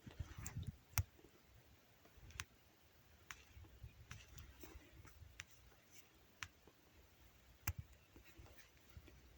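Near silence broken by faint, sharp clicks scattered about a second apart, over a low rumble.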